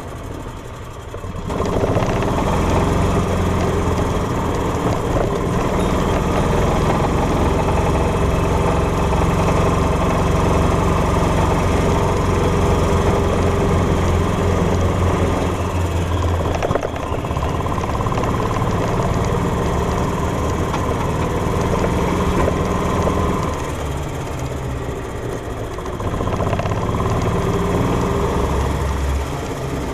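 Golf cart engine running as the cart drives along. It is quieter at first and picks up after about a second and a half, then eases off briefly around the middle and again for a few seconds near the end.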